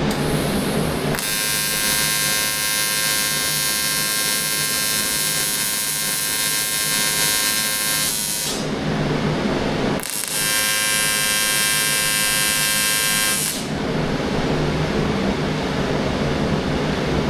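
AC TIG welding arc on aluminum buzzing steadily, struck twice to lay two tack welds: a first arc of about seven seconds, then a short gap, then a second of about three and a half seconds. The cleaning setting is at about 40%. A steady low hum from a fan or air conditioner runs underneath.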